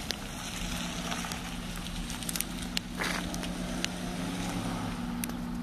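BMW saloon's engine running with a steady low hum as the car pulls away, over crackling wind and handling noise on the microphone, with scattered clicks.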